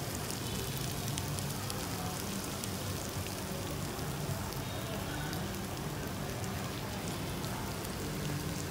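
Sturgeon pieces with dill and spring onions sizzling steadily in a hot frying pan just off the charcoal heat, an even hiss with faint crackles.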